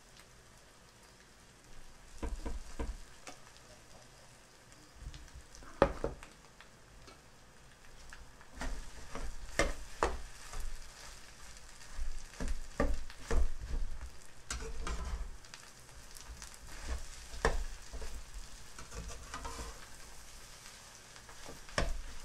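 Rice, egg and Chinese sausage frying in a nonstick pan, a soft sizzle under repeated scrapes and knocks of a metal ladle and spatula stirring and turning the rice against the pan. The strokes begin about two seconds in, with one sharp knock about six seconds in, and come thick and fast through the second half.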